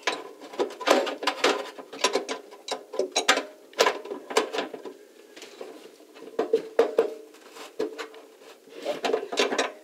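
Steel spanner wrench clinking and scraping against the lugs of a sink basket-strainer locknut as it is fitted and turned: a run of irregular metal knocks and taps, each with a short ring.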